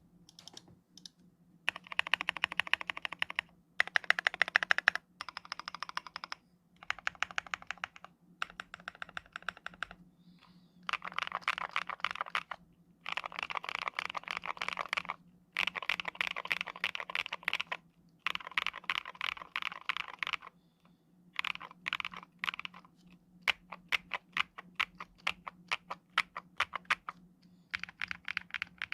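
Custom mechanical keyboard being typed on: a Mont Cervin kit with a polycarbonate plate, factory-lubed PH Studio switches and SA-profile keycaps. Fast runs of keystrokes alternate with short pauses, with a stretch of slower, separate key presses in the second half, over a faint steady low hum.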